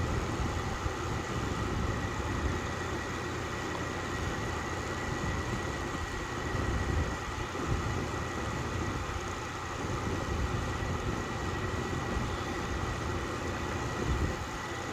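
Steady low mechanical hum with a faint, constant high-pitched whine over it, the background noise of a running machine such as a fan.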